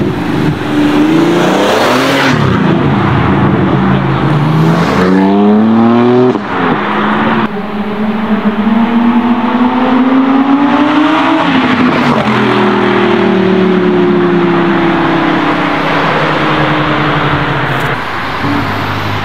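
High-performance sports car engines accelerating hard one after another, each engine note climbing steeply in pitch, with sudden changes from one car to the next. In the second half a long engine note slowly falls.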